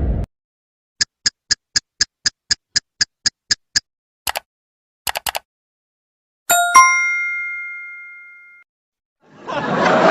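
A run of sound effects: a clock ticking about four times a second for about three seconds, then a few computer mouse clicks, then a bright 'correct answer' ding of several tones that rings and fades over about two seconds. Near the end a crowd starts laughing and chattering.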